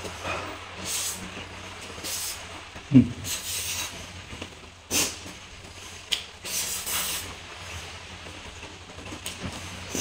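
Close-miked eating: chewing, smacking and slurping mouthfuls of instant noodles and lettuce, in short hissy bursts every second or so, with one low thump about three seconds in.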